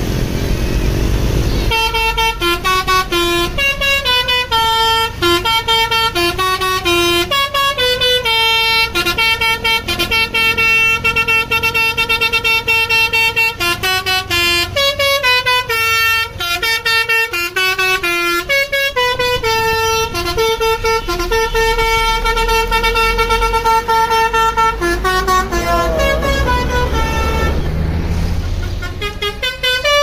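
Bus basuri 'telolet' musical horn playing a long tune of stepped horn notes over the low running of the coach's diesel engine. The tune starts about two seconds in and stops a few seconds before the end, leaving the engine; another horn tune starts right at the end.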